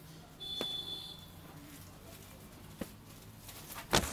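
Faint crunching of a mouthful of crunchy ghee avalakki (flattened-rice) mixture being chewed. A short high tone sounds about half a second in, and a loud brief noise comes near the end.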